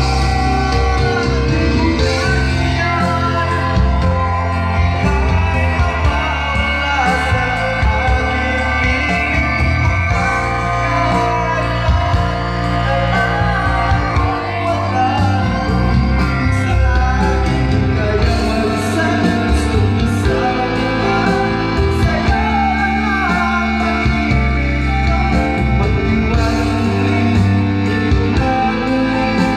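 A man singing a ballad into a karaoke microphone over a loud backing track.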